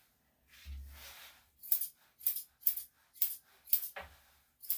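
Grooming scissors snipping through a small dog's leg fur: six crisp metallic snips, about one every half second, from just under two seconds in. A soft rustle comes about half a second in.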